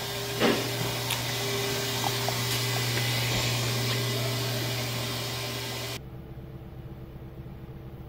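Steady running noise of a Cadillac DeVille's 4.6 L Northstar V8, which has a misfire, with a click about half a second in. About six seconds in the sound cuts off abruptly, leaving a faint hum.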